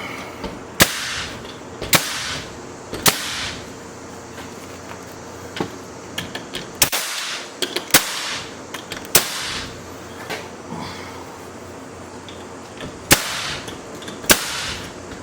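Nails being driven into a poplar board: about eight sharp, loud shots roughly a second apart, in three groups, each trailed by a brief hiss, with a few lighter knocks between.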